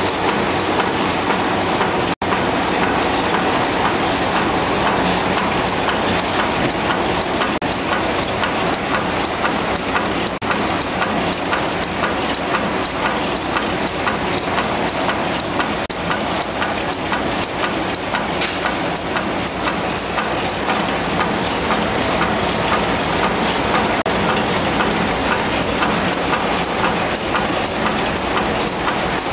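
Reel-to-pack converter, an eight-colour continuous-stationery printing machine, running at speed: a steady, dense mechanical clatter with a fast, even ticking rhythm. The sound cuts out for an instant about two seconds in.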